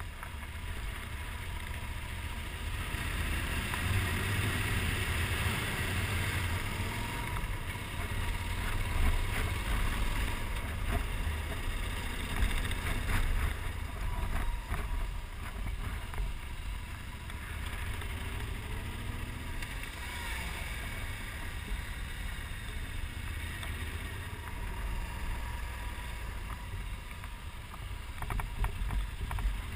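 Low motorcycle engine rumble under wind rushing over the camera's microphone, swelling and easing as the bike rides along.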